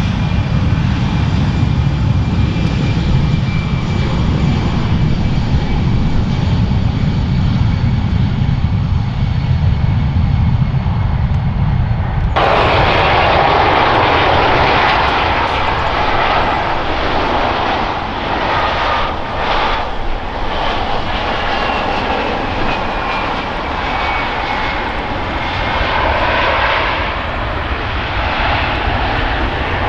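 Airbus jet airliner engines: first a deep rumble with a steady high whine, then an abrupt cut about twelve seconds in to another airliner's jet engines running with a brighter roar and a faint, slowly falling whine.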